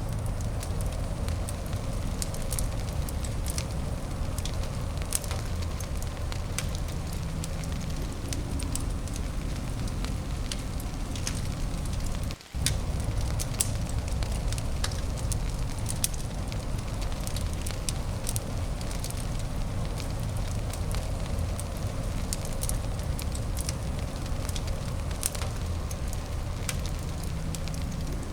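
Fireplace fire crackling, with scattered sharp pops over a steady low rushing noise. The sound drops out for a moment about twelve seconds in.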